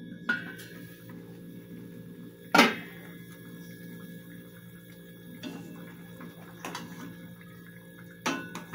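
Chicken braising in a stainless steel pot: a metal lid clinks onto the pot with a short ring just after the start, then a steady low hum with faint simmering and a few light knocks, the last as a plastic ladle goes into the pot near the end.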